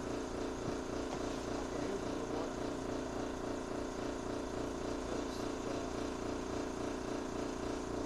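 A steady mechanical drone from a running motor, with a fast, even pulsing that does not change.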